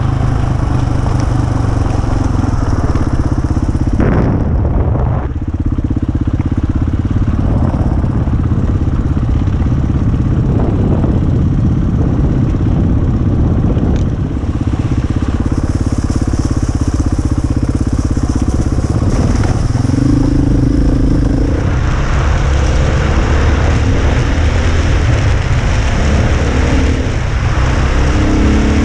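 KTM dirt bike engine running while under way, its note rising and falling briefly a couple of times with the throttle, over a steady hiss of wind or road noise.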